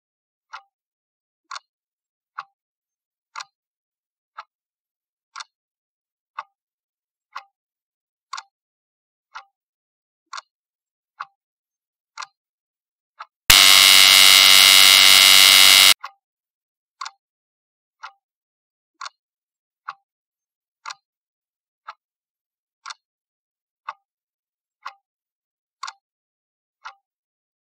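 Countdown timer clock ticking, about one tick a second. About thirteen seconds in, a loud buzzer sounds for about two and a half seconds as the time runs out, then the ticking starts again.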